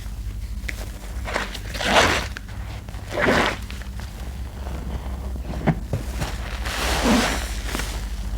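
Hands squeezing a sponge in thick, lathered laundry-soap paste, making wet squelching sounds. There are three main squelches, about 2 s, 3.3 s and 7 s in, with short wet clicks between them, over a steady low hum.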